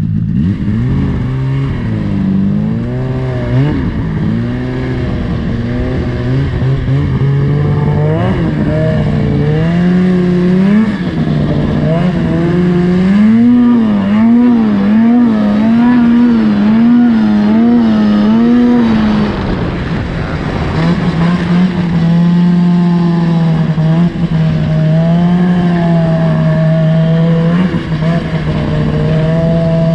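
Polaris 600 Switchback snowmobile's two-stroke engine running under way, its pitch wavering up and down, with quick regular surges about once a second in the middle and a steadier note later on. The engine chugs and bogs instead of pulling cleanly.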